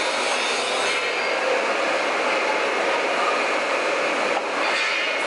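CNC wood router cutting, a loud steady hiss of spindle and bit in wood, with a brief dip about four and a half seconds in.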